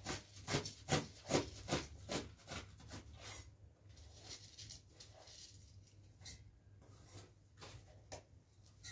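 A knife cutting bunches of fresh greens by hand: crisp cutting strokes, about two or three a second for the first three seconds, then fewer and fainter.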